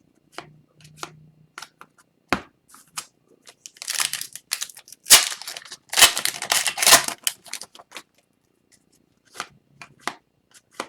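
A foil Upper Deck hockey card pack torn open, crinkling and ripping for a few seconds near the middle, with light clicks and slides of cards being handled before and after.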